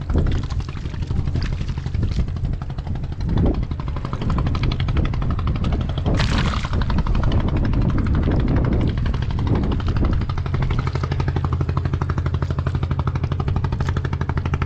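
An engine running steadily with a rapid, even chugging.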